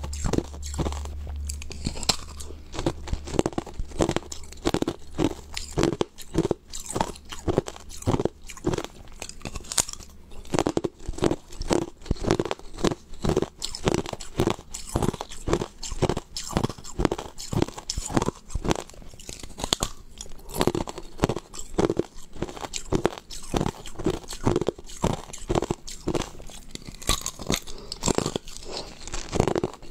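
Hard clear ice being bitten and chewed: an unbroken run of sharp, crisp crunches, several a second.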